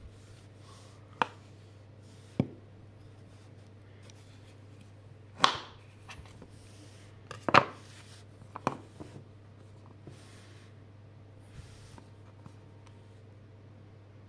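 A handful of sharp cracks and clicks as chocolate-coated biscuit-and-caramel bars are handled and cracked open on a hard tabletop, the two loudest about five and a half and seven and a half seconds in, over a low steady hum.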